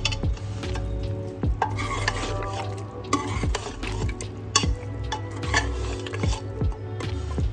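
A metal ladle stirring fried onions into thick nahari gravy in a metal pot, with wet sloshing and repeated sharp clinks and scrapes of the ladle against the pot's side.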